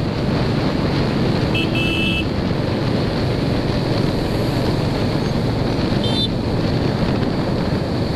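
Wind rushing over the microphone of a moving motorcycle, with its engine running steadily underneath. A brief higher-pitched tone sounds about two seconds in.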